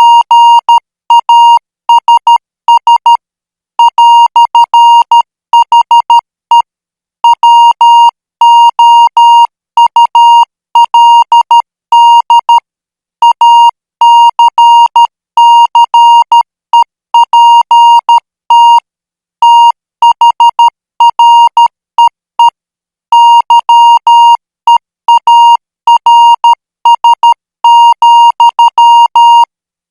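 Morse code practice tone: a single high beep keyed on and off in short dots and longer dashes at 12 words per minute, with brief pauses between letters and longer ones between groups.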